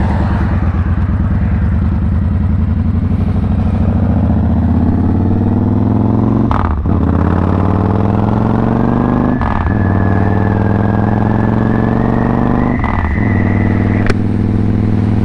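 Victory Hammer motorcycle's V-twin engine accelerating hard through the gears. The pitch rises in each gear, with three brief dips at upshifts about 7, 9.5 and 13 seconds in. A thin high whine climbs in the later part.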